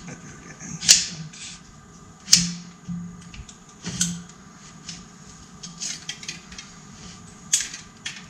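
Metal clicks and clinks of a clamp tool and engine parts as a cylinder barrel is worked down over the pistons of a Hall Scott aero engine, with four sharper knocks spread through it.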